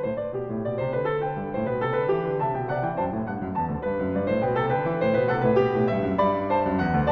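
Background piano music: a continuous stream of notes played at an even pace.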